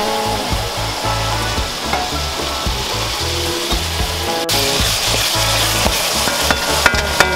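Saltfish and sautéed vegetables sizzling in a pot while a wooden spoon stirs them, over background music with a deep bass line. A few sharp ticks come near the end.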